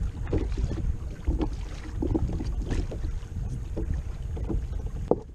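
Wind buffeting the microphone, with water lapping and slapping against a kayak hull in irregular splashes, and a sharp knock near the end.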